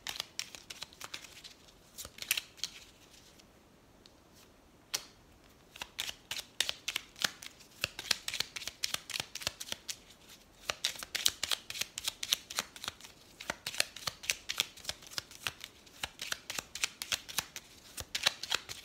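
A deck of oracle cards being shuffled by hand: quick, soft card flicks, sparse at first with a short lull about four seconds in, then a steady, dense run of flicks to the end.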